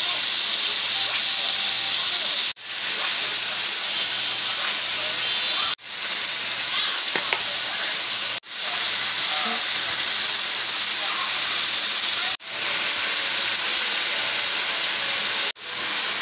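Diced deer heart sizzling steadily as it fries in a pan. The sizzle cuts out sharply five times, every few seconds, and swells back in each time.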